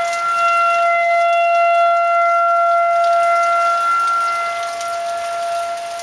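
Outdoor civil-defense tornado siren sounding the all-clear signal: one steady tone that holds its pitch without wailing, easing slightly in level about two-thirds of the way through. Light rain falls underneath.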